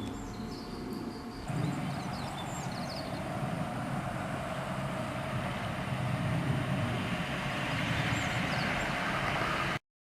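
Insects chirping faintly, then an abrupt cut to the steady low rumble of a diesel train's engine running, with an even hiss over it. The sound cuts off suddenly near the end.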